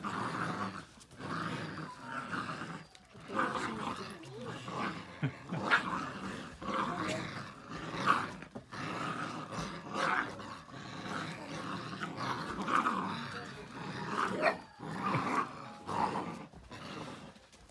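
Several Entlebucher Sennenhund puppies growling in play as they tug at a rope toy together, the growls running on in rough stretches with short breaks.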